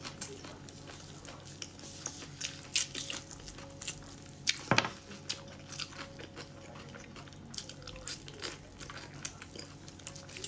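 Mouth-full chewing and a braised pig trotter being torn apart by gloved hands: a string of short clicks and crackles, loudest in a cluster about halfway through.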